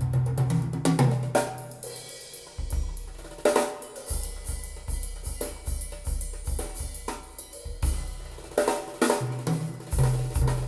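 Music with a full drum kit (kick, snare, hi-hat, cymbals) and strong bass, played back through Radiotehnika S-90 loudspeakers.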